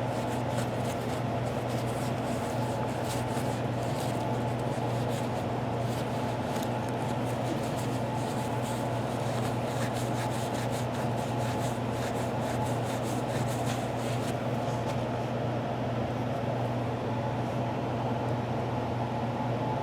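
Steady machine hum, like a small motor or fan, running at an even pitch, with faint light scratching and ticking over it for most of the first two-thirds.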